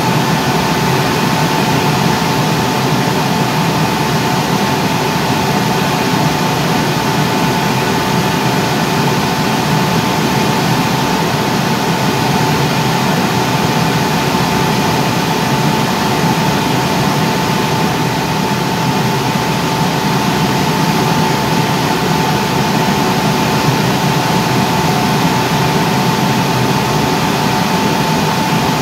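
Industrial forced-draught burner running on test, its blower fan pushing a loud, steady rush of air with a constant high whine.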